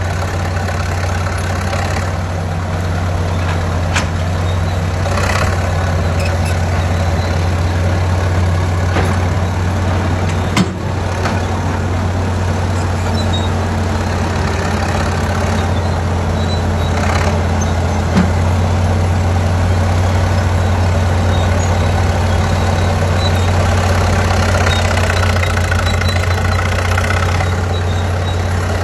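Vintage track loader's engine running steadily, with a sharp knock about a third of the way through and another about two thirds in.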